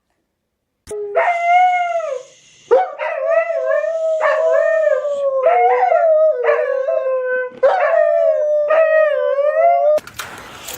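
Dog howling in long, wavering calls, starting about a second in and going on in several breaths until near the end.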